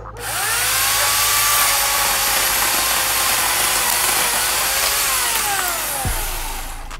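Chainsaw revving up to full throttle, likely cutting a tree limb, held at high revs for about five seconds, then its pitch falls away as the throttle is released near the end.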